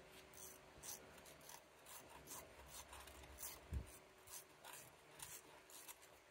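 Faint metal clicks and scrapes, irregular and about two a second, from a 5 mm Allen key working the bolt that holds the front ABS wheel speed sensor in the hub, with one dull thump a little before four seconds in.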